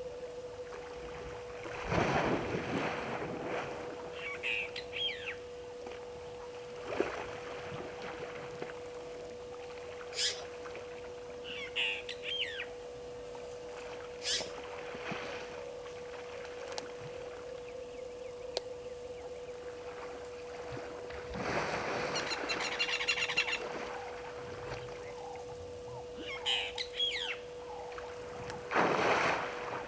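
African elephant wallowing in a waterhole, with several bursts of splashing water, the longest about two-thirds of the way in. Birds call between the splashes, and a steady electrical hum runs underneath.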